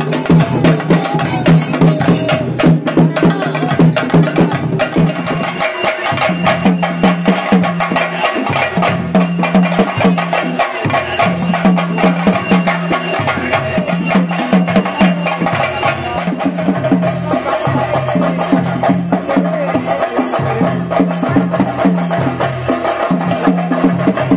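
Theyyam ritual percussion: a dense, rapid stream of drum strokes over a low note that repeats in phrases of a second or so, with a thin high ringing through the middle.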